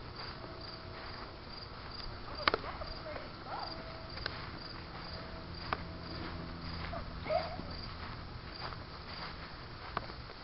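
Insects chirping outdoors, a high pulse repeating steadily about twice a second, with a few sharp clicks in between.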